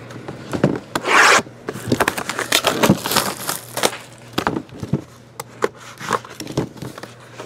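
Large flat cardboard box being handled and slid over a tabletop: a run of rubbing and scraping sweeps with small knocks, the loudest rasping sweep about a second in.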